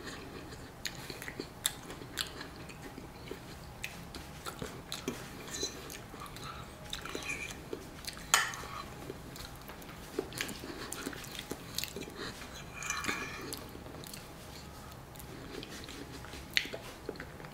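Close-up eating sounds: chewing and mouth noises, with a metal fork scraping and clicking against a ceramic plate. One sharp clink stands out about eight seconds in.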